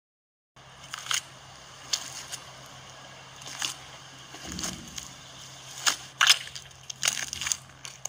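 Footsteps squelching through mud: a series of wet, crunchy treads at uneven spacing, starting about half a second in, over a faint steady low hum.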